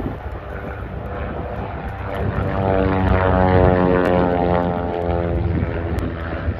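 Propeller-driven biplane passing low overhead: the Fokker D.VII replica's 200 hp Ranger 6-440 six-cylinder engine and propeller grow louder to a peak about halfway through, then fade.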